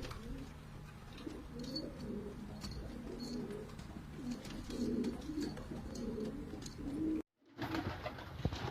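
Domestic pigeons cooing, a run of low, wavering coos one after another. The sound drops out completely for a moment about seven seconds in.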